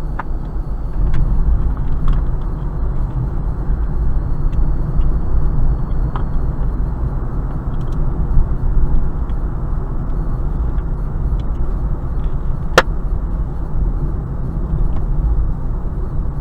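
Steady road and engine rumble of a car driving slowly, heard from inside the cabin through a dashcam microphone. A few faint ticks, and one sharp click about three-quarters of the way through.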